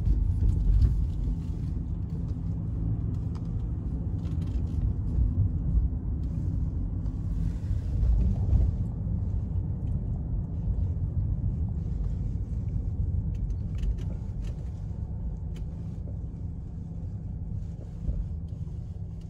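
Low, steady rumble of a car's engine and road noise heard from inside the cabin while driving, fading slightly near the end.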